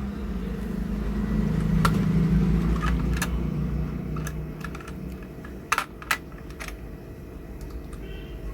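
Scattered sharp clicks and light knocks of small computer hardware being handled, about half a dozen, the loudest pair about six seconds in. Under them a low hum swells over the first few seconds and fades by the middle.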